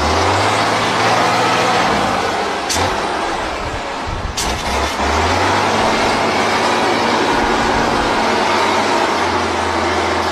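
Engine of an 8x8 off-road trial truck running hard under load as the truck works its way through mud and water. The engine note holds, dips briefly around the middle and comes back. There are two sharp cracks, at about three and at about four and a half seconds.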